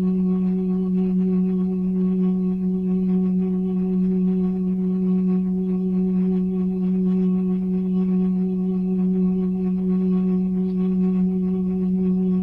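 Tornado siren sound effect holding one steady, low, unwavering tone with a few fainter overtones above it, without the usual rise and fall of pitch.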